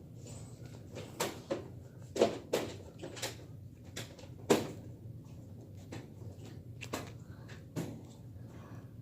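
Irregular light knocks and clicks from small objects being handled and set down, about a dozen in all, the loudest around two and four and a half seconds in, over a faint steady low hum.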